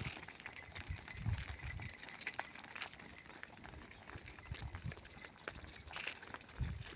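Cattle moving about: scattered soft hoof thuds and clicks, with no mooing.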